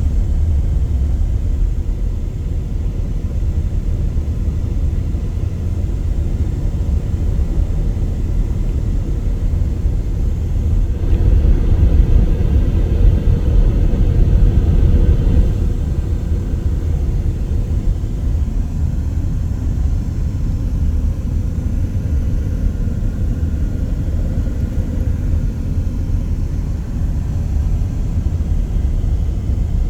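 Steady low rumble of a vehicle driving: road and engine noise, louder for a few seconds around the middle.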